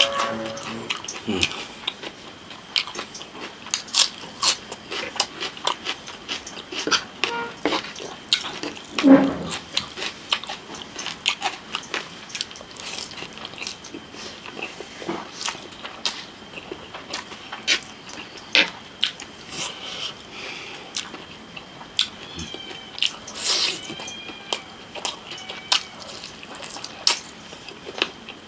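Close-miked eating sounds: chewing, biting and slurping spicy noodles and fried chicken leg, heard as many sharp, wet, irregular mouth clicks.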